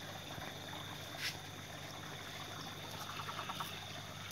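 Quiet background noise with a thin, steady high whine, one brief click about a second in, and a short run of faint rapid pulses around three seconds in.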